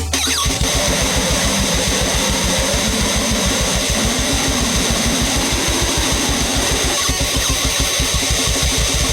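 Goregrind/noise music: a loud, dense wall of distorted noise and guitar over a very fast, even pounding drum pulse, which kicks in just after the start.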